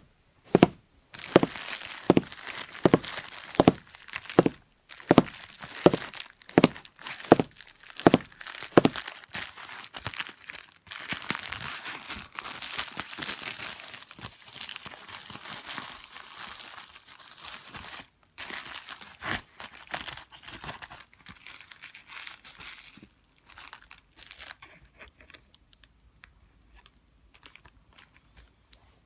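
Parcel packaging being opened: a run of sharp knocks about one every 0.7 seconds for the first nine seconds, then crinkling, rustling and tearing of the wrapping that thins out near the end.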